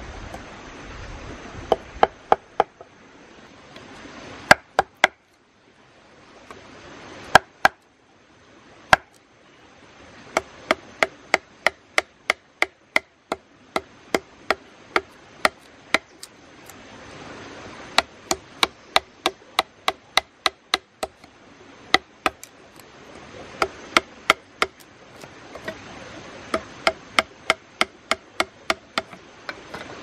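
A large jungle knife chopping into a green bamboo tube resting on a log: sharp woody knocks in quick runs of about two to three a second, with short pauses between runs, as a small rectangular hole is cut into the bamboo.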